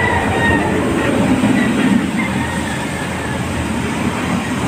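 A steady, fairly loud rumbling background noise like a passing vehicle, with a few faint brief whistle-like tones over it.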